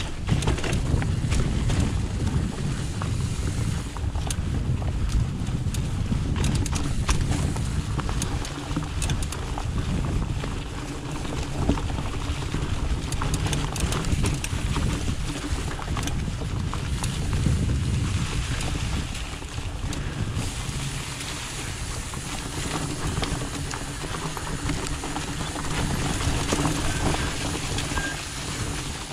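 Trek Farley fat bike being ridden along a trail: wind buffeting the action camera's microphone over the rumble of the fat tyres, with frequent clicks and rattles from the bike and the trail surface. The rumble eases a little about two-thirds of the way through.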